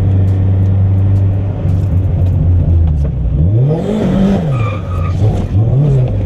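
Turbocharged Mazda Miata engine running steadily, then revved up and let back down about three and a half seconds in, with a short high squeal on top, and a second smaller rev near the end, as the car is thrown into a corner in a drift attempt.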